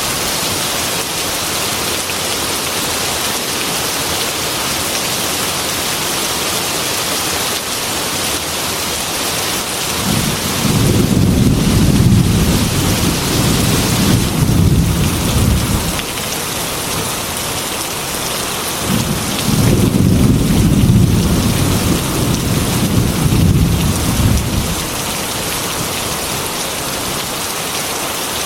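Heavy rain beating steadily against a glass window, with two long, low rolls of thunder: the first about a third of the way in, lasting some six seconds, the second a few seconds later and about as long.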